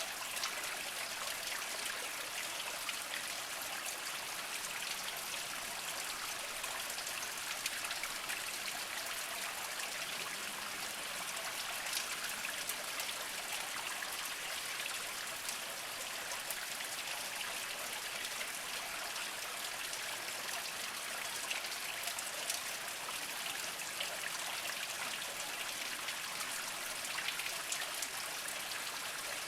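Small mountain spring trickling over mossy rocks: a steady splashing with fine drips and plinks.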